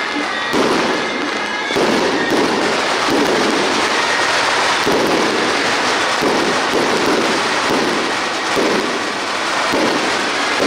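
Firecrackers going off in a dense, continuous crackle, surging every second or so, with faint band music underneath.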